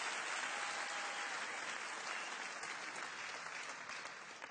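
Studio audience applauding steadily, slowly dying down toward the end.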